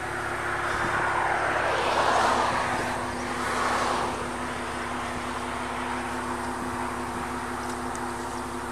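A car passing on the highway: tyre and road noise swells to a peak about two seconds in and fades after about four seconds, over a steady low hum.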